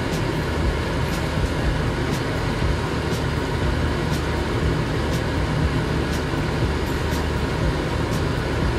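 A wooden spatula stirring a thick simmering stew in a pan, with light clicks against the pan about once or twice a second, over a steady low hum.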